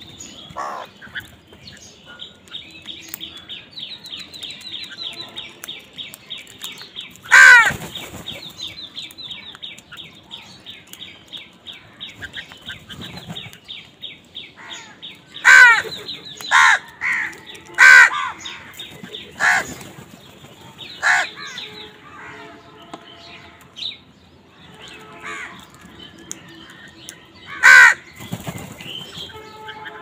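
House crows cawing: about seven loud, harsh caws, several of them in quick succession in the middle and one near the end. Fainter caws and a fast chattering run of higher notes fill the background for much of the first half.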